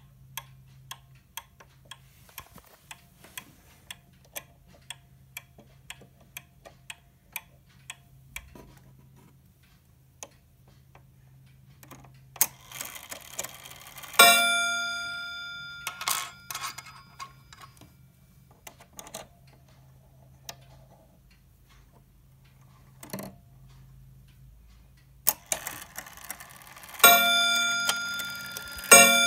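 Mechanical pendulum clock ticking steadily, then its strike train hammering the gong: one ringing strike about fourteen seconds in, and near the end a series of strikes about two seconds apart, each ringing on and slowly fading.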